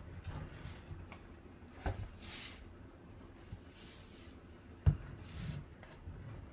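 Cardboard box being handled: short scraping and rubbing sounds of cardboard sliding against hands and the table, a sharp click a couple of seconds in, and a loud knock about five seconds in as the box is set down or bumped.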